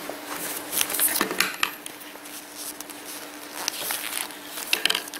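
Hands handling a pair of denim jeans: fabric rustling and scraping with scattered small clicks, busiest about a second in and again near the end, over a faint steady hum.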